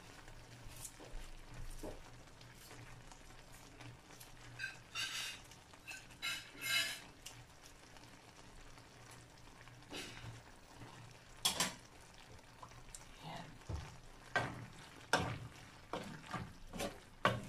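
Cooking utensils scraping and knocking against a frying pan as sautéed chayote and spring onions are stirred, in short strokes at irregular intervals.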